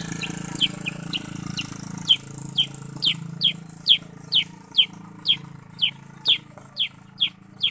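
Black-headed bulbul (kutilang sutra) calling a long, even series of short, sharp, downward-slurred notes, about two a second.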